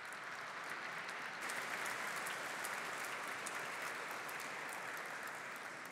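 Audience applauding, a dense clatter of many hands that is fullest about two seconds in and tapers off near the end.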